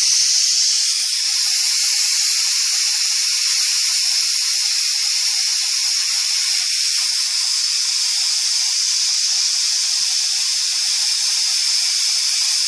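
Steam hissing steadily and loudly out of the open petcock on the lid of a 1920s All American No. 7 pressure canner as it vents.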